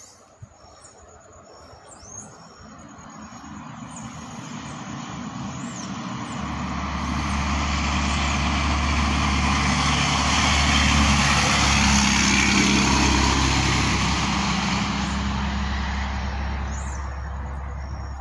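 A truck approaching along the road and passing close by. The noise of its engine and tyres builds steadily, is loudest about eleven to thirteen seconds in, then eases off.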